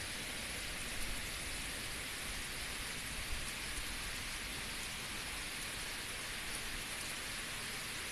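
Heavy rain falling steadily on a paved road and roadside foliage, an even, unbroken rush of rain noise.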